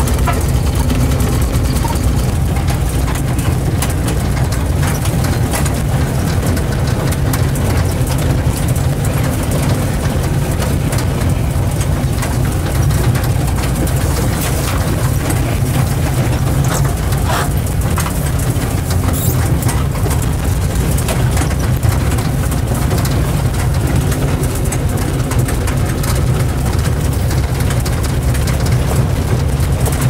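UAZ-469B's four-cylinder petrol engine running steadily under load, heard from inside the cab while driving slowly over rough dirt track, with scattered knocks and rattles.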